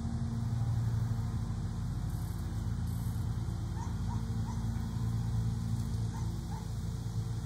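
Steady low machine hum, like an engine or motor running, with a few faint short rising squeaks about four seconds in and again past six seconds.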